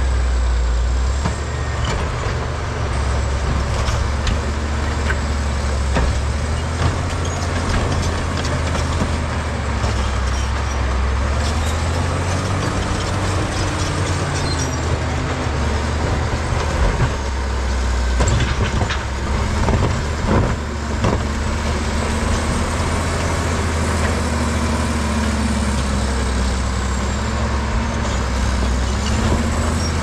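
Caterpillar D7G bulldozer's diesel engine running under load, its pitch rising and falling, with a faint high whine that swells and fades. A few knocks come about two-thirds of the way through.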